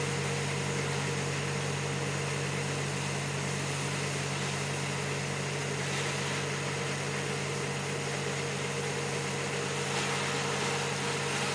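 Steady mechanical drone of machinery running at a constant speed, a low hum with a steady higher tone over it.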